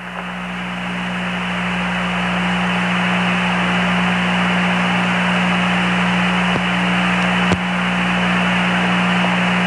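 Open Apollo 11 air-to-ground radio channel between transmissions: steady static hiss over a low, constant hum, swelling over the first two seconds. A single click cuts in about seven and a half seconds in.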